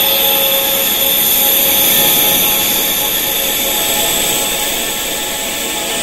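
Wind chimes ringing continuously, many overlapping held tones from mid to very high pitch, the strongest high up, over a steady hiss. The chimes are tuned to tinnitus frequencies for sound therapy.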